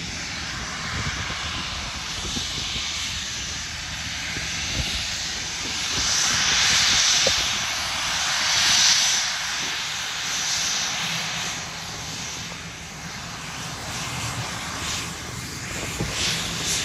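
Twin rear-mounted jet engines of a Gulfstream-type business jet running at taxi power: a steady jet rush that swells to its loudest a little past the middle as the jet passes closest, then eases.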